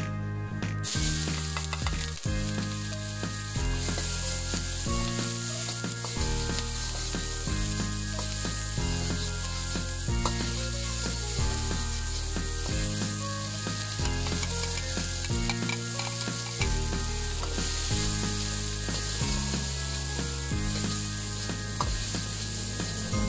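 Chopped onions sizzling in hot oil in a wok, with a metal spatula scraping and stirring them. The sizzle starts sharply about a second in and then runs steadily. Background music with a steady bass line plays throughout.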